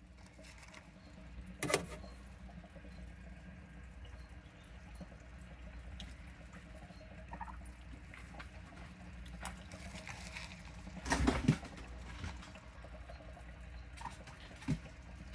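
Faint running water and a steady low hum from a frog tank, broken by a few short knocks, the loudest about eleven seconds in.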